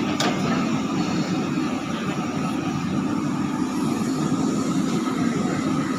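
Diesel engine of a JCB 3DX backhoe loader running steadily under work, with one sharp click just after the start.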